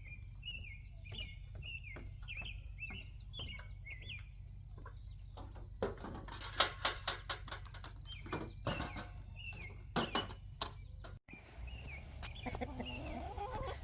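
Birds chirping, short high calls repeated about twice a second, with a cluster of sharp clicks and knocks in the middle and a thin steady high tone for a few seconds.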